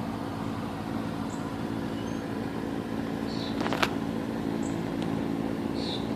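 Steady hum of a running HVAC package unit, its compressor and outdoor condenser fan both on, with one sharp click about four seconds in.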